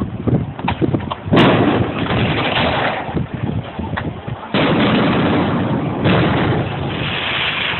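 Fireworks shells bursting over a harbour: three loud bangs, about one and a half, four and a half and six seconds in, each followed by a long noisy rumble, with a few small pops before the first.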